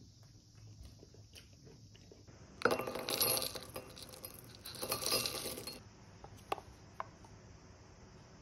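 Granola poured into an amber glass bowl, the clusters rattling and clinking onto the glass in two pours. Two light clicks follow.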